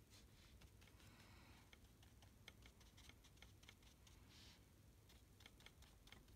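Near silence, with faint irregular light clicks and taps of a watercolour brush working paint on paper.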